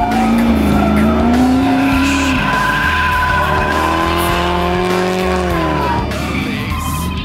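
Nissan 180SX drift car's engine held at high revs while its rear tyres squeal and smoke through a slide, the engine note rising and falling with the throttle and dipping about six seconds in.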